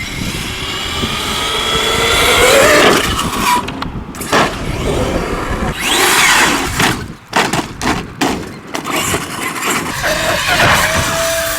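Traxxas X-Maxx electric RC monster truck driving, its brushless motor whining up in pitch as it accelerates, over tyre and ground noise, with several sudden breaks and a second rising whine.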